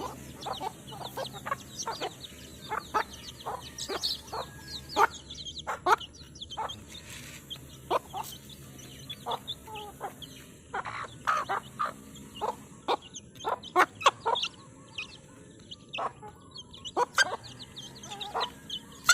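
Domestic chicks peeping continuously in many short, high, falling calls, with a hen clucking among them.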